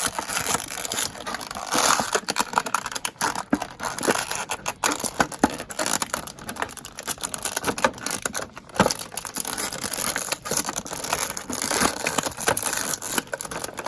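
Plastic and cardboard toy packaging being handled and torn to free an action figure: a steady run of quick crinkling, tearing and clicking.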